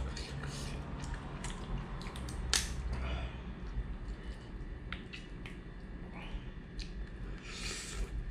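Cooked, sauce-coated white pepper crab being cracked and pulled apart by hand: small sharp cracks of shell and wet squishing as the meat is picked out, with a brief sucking sound near the end as a piece of shell is put to the mouth.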